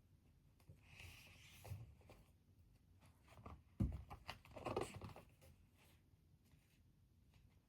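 Faint desk-work sounds: scattered clicks and rustling, with a single louder thump a little under four seconds in.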